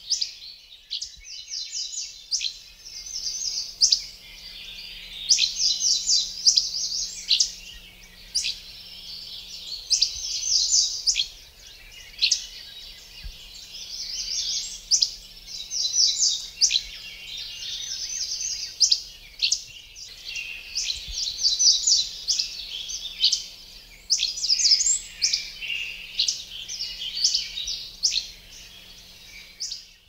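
Songbirds singing: rapid trills of repeated high notes, broken by short sharp chips, with several birds overlapping.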